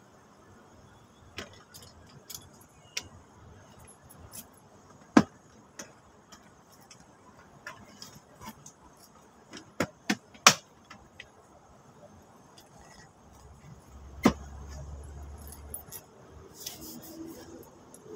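Scattered sharp clicks and knocks over a faint background: a loud one about five seconds in, a quick cluster of three around ten seconds, and another around fourteen seconds, with a brief low hum near the end.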